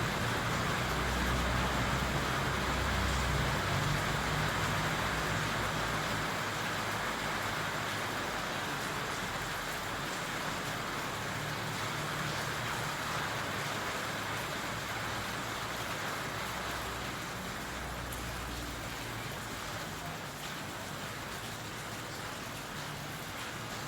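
Steady rain falling, an even hiss that eases slightly over time. A low rumble rises under it in the first few seconds and again about two-thirds of the way through.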